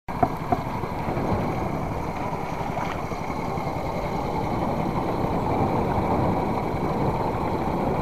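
Small fishing boat's engine running steadily under way, with water rushing along the hull. Two short knocks sound just after the start.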